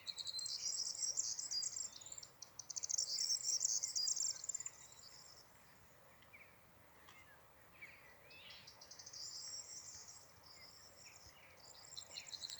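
High-pitched insect trilling in bouts that start and stop several times, with faint bird chirps in the gaps.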